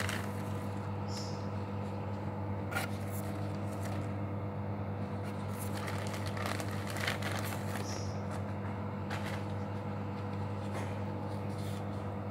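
Plastic bag and disposable plastic gloves rustling and crinkling in short, scattered bursts as parsley is pulled out and handled, over a steady low hum.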